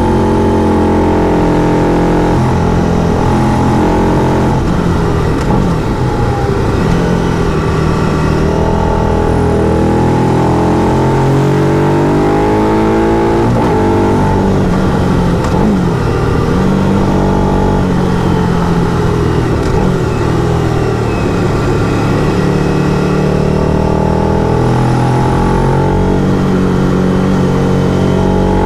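Motorcycle engine under way while riding, its pitch rising and falling repeatedly as it revs up and shifts gear.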